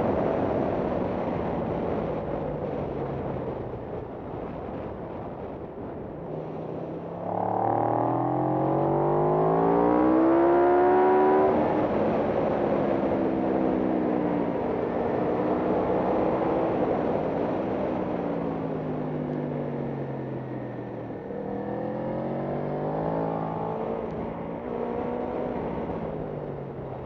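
Racing motorcycle engine heard from on board at track speed, over wind noise. Its pitch climbs hard for a few seconds about a quarter of the way in, then falls and rises again several times as the rider shifts gears and works the throttle through the corners.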